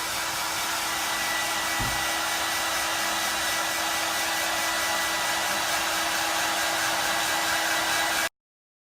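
Hair dryer blowing steadily: a rushing hiss with a steady hum, and a brief low bump about two seconds in. The sound cuts off abruptly near the end.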